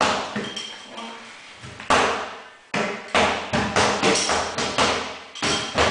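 Sharp thuds and taps of impacts on a rubber gym floor: a single strike at the start, another about two seconds in, then a quick run of about two to three strikes a second to the end.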